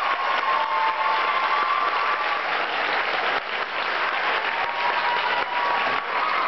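Theatre audience applauding steadily, with a few faint held high tones over the clapping.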